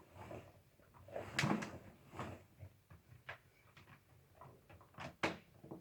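Scattered knocks, clicks and rubbing of objects being handled, with the loudest knock near the end; no vacuum cleaner motor running.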